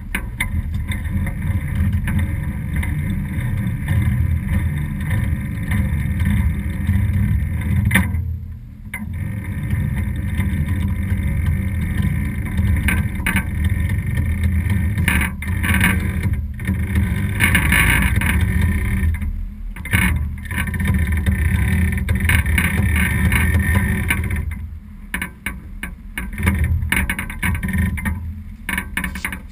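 Wind buffeting the microphone aboard a sailboat under sail: a loud, low rumble that rises and falls with the gusts, easing briefly about eight seconds in and again near the end.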